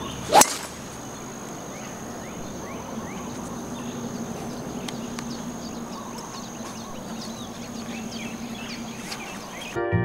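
A golf club strikes the ball off the tee with a single sharp crack about half a second in. Outdoor ambience follows: a steady high-pitched insect drone and scattered short bird chirps.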